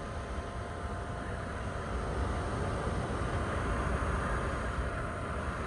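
MaxxAir MaxxFan Dome roof vent fan running steadily just after being switched on, a continuous rush of moving air with a low rumble and a faint steady motor hum. It is pulling air well.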